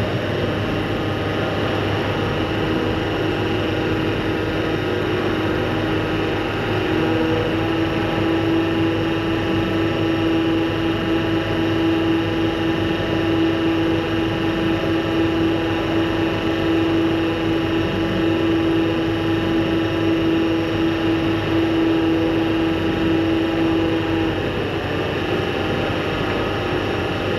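Crane truck's engine running at a steady speed, with a strong steady whine over it that stops about three seconds before the end.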